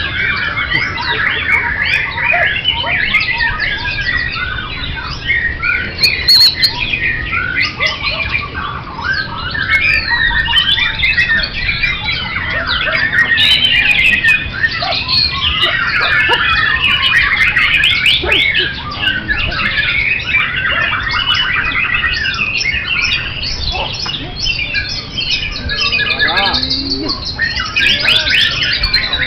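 Many caged songbirds singing at once: a dense, unbroken chorus of overlapping chirps, trills and whistled glides.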